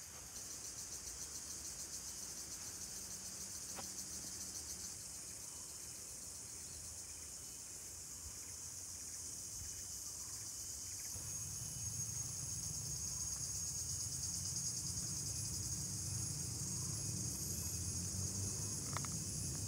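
A steady, high-pitched chorus of insects in tropical forest, with a low rumble coming in about halfway through.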